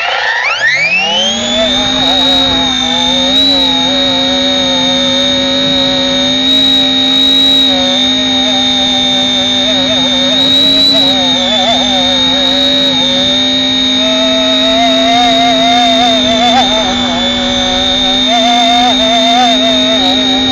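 RC helicopter spooling up, its whine rising over the first couple of seconds, then running steadily at flight speed. The main tones hold steady while a middle tone keeps wavering up and down as it flies in the gusty wind.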